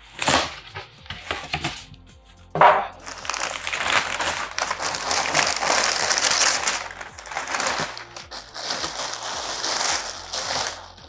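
Polystyrene fish-shipping box being unpacked: two short scrapes in the first three seconds as the lid comes off, then continuous crinkling and rustling of newspaper packing and a large plastic bag being pulled open.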